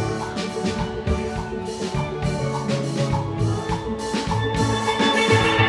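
Steel orchestra playing: a full band of steel pans ringing out a tune over a steady drum beat, a little louder near the end.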